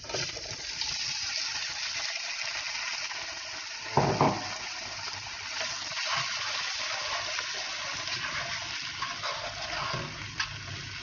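Chopped tomatoes sizzling steadily in hot olive oil with garlic and chili as they are stirred in a nonstick pot, with one louder knock about four seconds in.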